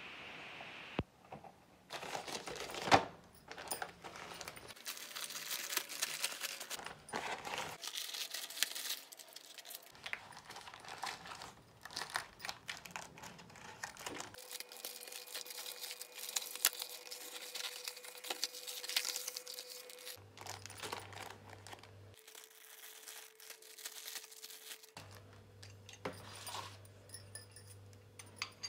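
Plastic courier bag and packaging torn open and crinkled by hand, irregular rustling and crackling with one sharp, loud tear or crack about three seconds in.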